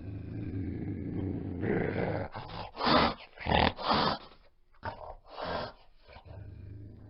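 A large predator-like animal growling low and steadily, then giving about five short, loud snarls in quick succession before settling back into a low growl.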